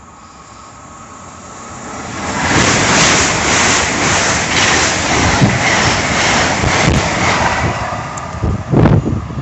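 LNER electric express train running through the station at speed: a rushing noise of wheels and air that builds and stays loud for about five seconds with a faint regular beat, then eases. A few gusts of wind thump on the microphone near the end.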